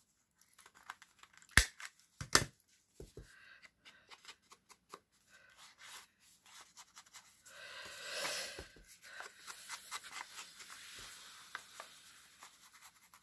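A handheld corner rounder punch snapping through paper card twice, sharp clicks a second apart, followed by a few lighter clicks. Then an ink blending tool rubbing and scraping across the card's paper edges, loudest at first and going on more faintly.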